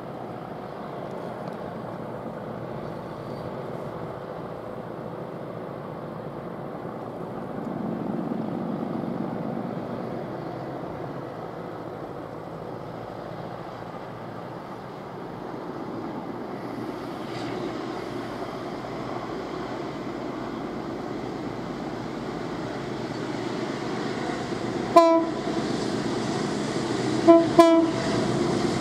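Approaching container freight train: a low, steady rumble that slowly grows louder. Near the end the locomotive's horn sounds one short blast, then two quick short blasts a couple of seconds later.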